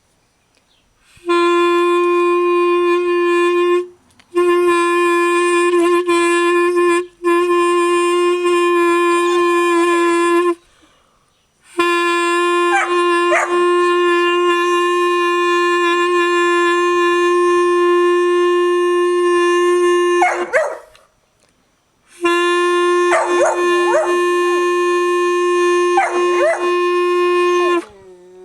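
A beginner's clarinet playing long held notes, all on the same pitch, in five blasts with short breaks between them. A puppy yips, barks and howls along over the notes, most in the second half, and whimpers as the last note stops.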